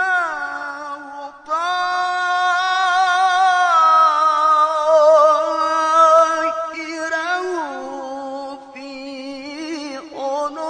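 A male qari reciting the Quran in melodic tilawah style, drawing out one long ornamented vowel with a wavering pitch. There is a short break about a second and a half in, and the line steps down in pitch about seven and a half seconds in.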